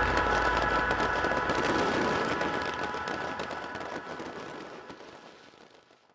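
Fireworks crackling over sustained musical tones, with a low rumble dying away early on; the whole mix fades out to silence near the end.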